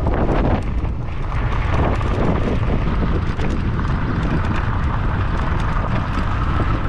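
Steady wind buffeting on the microphone of an electric bike moving at speed over a sandy dirt road, with the low rumble of the tyres on the sand.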